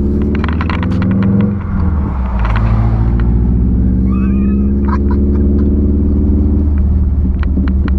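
Subaru WRX's 2.5-litre turbocharged flat-four running loud through a straight pipe with the muffler removed, pulling away under light throttle. The engine note climbs, dips briefly about a second and a half in, then holds steady, with scattered crackles and pops from the exhaust.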